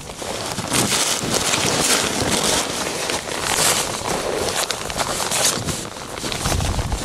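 Wind buffeting the microphone: a rough rushing noise that rises and falls in irregular gusts.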